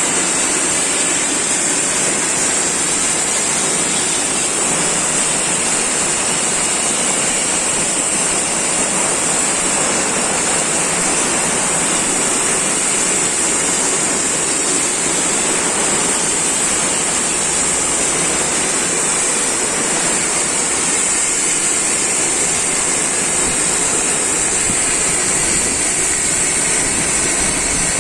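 Heavy rain falling steadily: a dense, even rushing hiss with a steady high-pitched hiss on top.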